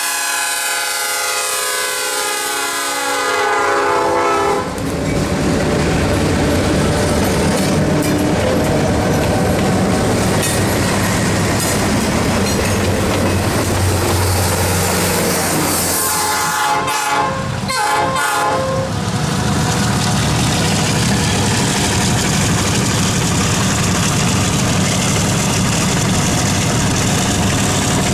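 EMD E8A diesel locomotive's multi-chime airhorn blowing for a road crossing, its pitch dropping as the locomotive passes. Then the heavy rumble of the diesel units going by, a brief horn sounding again about halfway through, and the steady clatter of passenger-car wheels on the rails.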